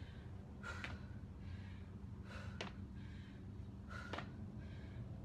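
A woman breathing hard during sumo squats with a knee raise: three sharp breaths out, about a second and a half apart, each with a short click, over a faint steady low hum.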